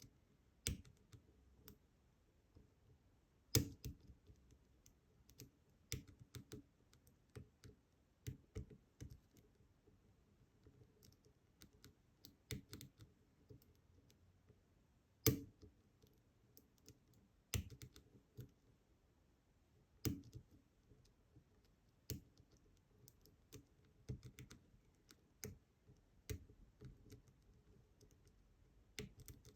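Faint, irregular clicks and ticks of a steel hook pick working the pin stack of an ASSA 700 pin-tumbler lock under tension, as the pins are lifted, set and dropped one after another; a few clicks stand out louder, about four seconds in and near the middle.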